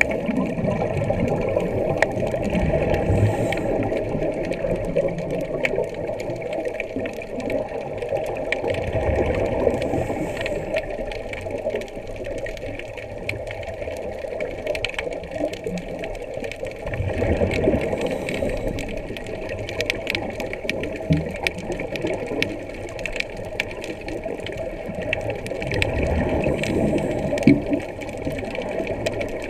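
Muffled underwater sound of scuba divers breathing through their regulators, with bubbling exhalations that swell every seven or eight seconds and scattered small clicks.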